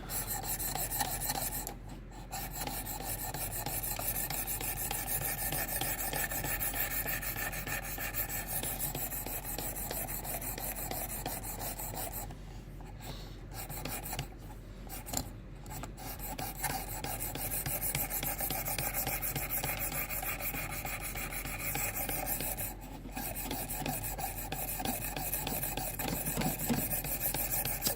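D2 steel knife blade stroked along a wet diamond sharpening stone on a Work Sharp Precision Adjust guided sharpener, a steady scraping rasp with a few short pauses between passes.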